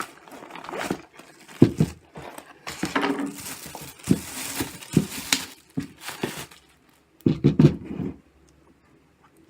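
Unboxing handling of packaging and a carry bag: irregular crinkling and rustling with a few short knocks, going quiet for a moment near the end.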